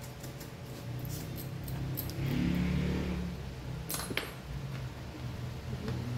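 Light metallic clinking of small screws and tools, with a couple of sharp clicks about four seconds in, over a steady low hum, as a laptop's bottom cover is put back on.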